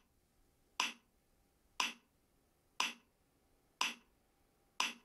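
Short test ticks played through a Mikado MD-SBT25 Bluetooth soundbar by a latency-test app on a phone, one every second, five in all, each dying away quickly.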